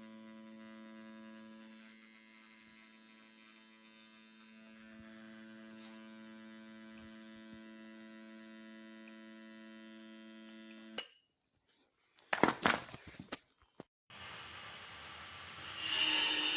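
A steady electrical hum with several overtones, which cuts off about eleven seconds in. It is followed by a quick cluster of loud sharp knocks, then a noisy whirring that gets louder near the end.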